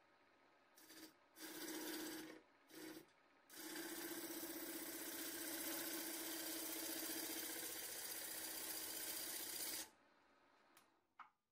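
A power tool started in three short bursts, then run steadily for about six seconds before stopping abruptly, with a rasping sound of wood being worked.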